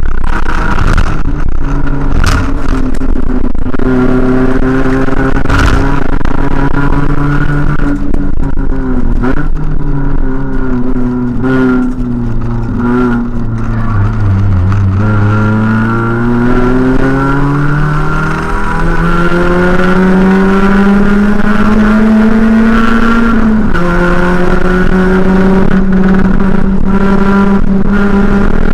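Racing car's engine heard from inside the cabin as it laps a circuit. The engine note climbs and falls with gear changes and braking. It sinks lowest about halfway through, then climbs again, with sudden steps in pitch near the two-thirds mark.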